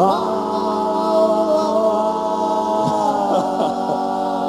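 Doo-wop a cappella group holding a sustained closing chord in close harmony on the word "moon" as the big finish. A single voice wavers and slides in pitch about three seconds in while the others hold.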